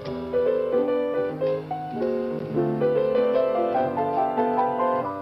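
Solo piano playing a quick run of notes, with the melody stepping upward in pitch over the middle of the passage.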